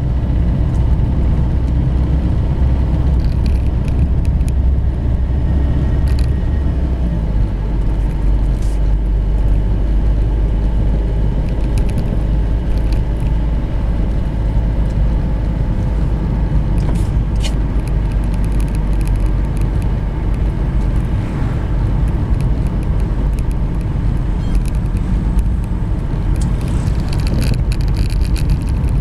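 Car driving on a road, heard from inside the cabin: a steady low rumble of engine and tyres, with a few short knocks from the front of the car. These knocks are the unexplained front-end noise being listened for.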